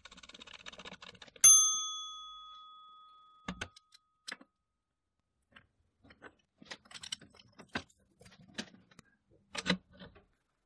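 Steel threaded rod turning in the tapped hole of a steel clamp jaw held in a bench vise: a scratchy threading rasp, then one sharp metallic ring that dies away over about two seconds. Scattered clicks and light taps of the steel parts follow as they are fitted together.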